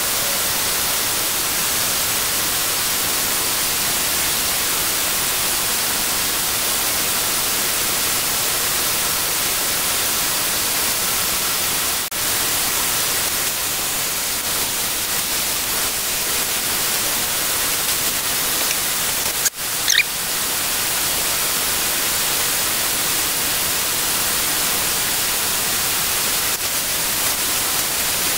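Steady, loud hiss, like rushing air, broken twice for a moment, about twelve seconds in and again about nineteen seconds in, the second break with a short squeak.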